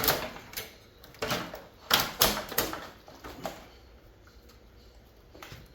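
Sharp metal clanks and clicks as parts of a mini split air conditioner are pulled and pried apart by hand and with tools: about seven knocks over three and a half seconds, then quiet apart from one faint knock near the end.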